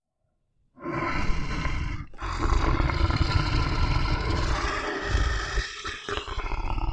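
Bear roaring and growling in long, low bouts, starting about a second in, with short breaks near two and six seconds.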